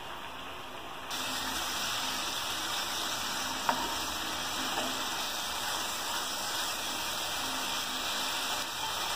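Grated carrot halwa mixture sizzling and bubbling in a frying pan as its sugar syrup cooks down, being stirred with a spatula. It gets louder about a second in, and there is one sharp knock of the spatula on the pan about three and a half seconds in.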